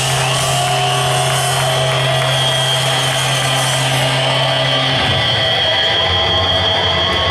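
A heavy metal band live: heavily distorted electric guitars and bass hold a low sustained note, dropping to a lower note about five seconds in, loud and dense.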